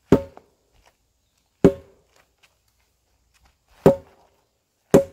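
A wooden waister (training sword) striking a pell of stacked tyres, four sharp blows about one to two seconds apart, each with a brief ring.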